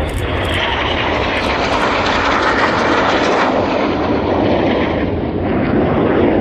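Loud roar of BAE Hawk T1 jets of the Red Arrows flying past during their display. The roar swells through the first few seconds, eases a little about five seconds in, then builds again.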